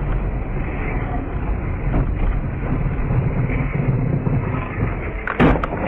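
Car driving with a steady rumble of road and engine noise, then a few sharp bangs about five and a half seconds in.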